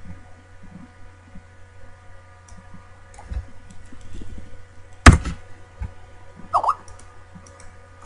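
Computer mouse clicks and keyboard keystrokes over a steady low electrical hum, with one loud sharp knock about five seconds in.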